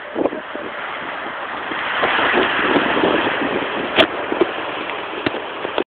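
Strong tornado wind rushing and buffeting a phone's microphone, growing louder about two seconds in. A sharp click about four seconds in and a smaller knock near the end; the sound cuts off abruptly.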